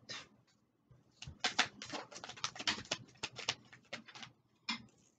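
A deck of oracle cards shuffled by hand: a quick, irregular run of light clicks and taps lasting about three seconds, with one more tap near the end.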